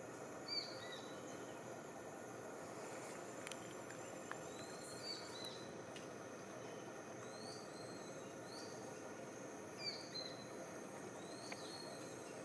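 Tropical rainforest ambience: a steady high insect drone over a background hiss, with short high bird chirps several times, often two close together.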